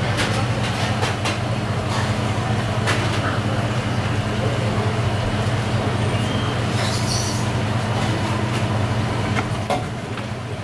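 Steady low mechanical hum of kitchen equipment, with scattered light clicks of a knife against a plastic cutting board as raw fish is sliced, and a brief hiss about seven seconds in.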